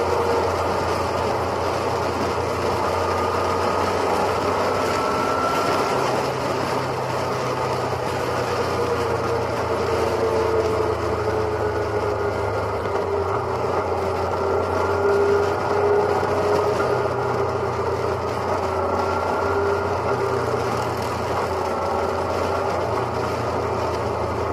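Motorcycle cruising at highway speed, heard from a camera mounted on the bike: a steady engine drone with wind and road noise, its pitch shifting a little now and then.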